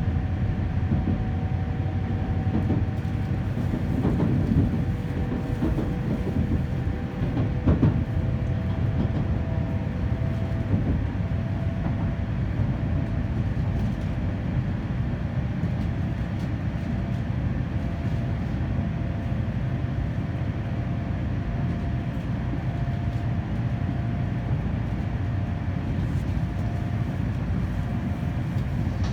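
N700 series 8000 Sakura shinkansen running at speed, heard inside the passenger car: a steady low rumble of wheels and track with a faint whine whose pitch shifts a little.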